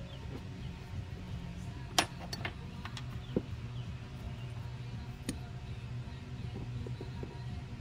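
Scattered light clicks and taps from handling an aluminium motorcycle brake master cylinder on a workbench, with a hex key poking paper towel into its bore; the sharpest click comes about two seconds in. A steady low hum runs underneath.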